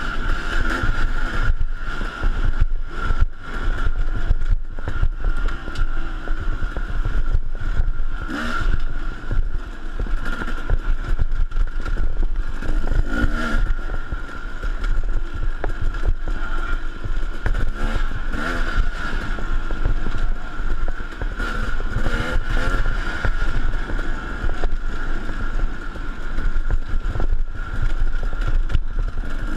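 KTM dirt bike engine running hard and revving up and down while ridden over a rough dirt trail, picked up by a camera mounted on the bike, with frequent knocks from bumps.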